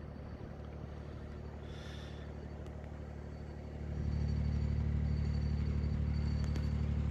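Narrowboat's Barrus Shire 802 inboard diesel running steadily under way, a low even drone that grows louder about four seconds in.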